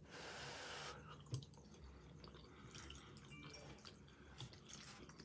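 Faint, wet chewing and small mouth clicks of someone eating creamy chicken fettuccine Alfredo, with a soft rushing noise over the first second.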